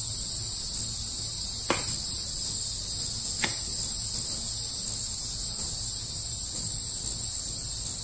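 Steady, high shrill of cricket chirping, used as an awkward-silence sound effect, with a couple of faint ticks.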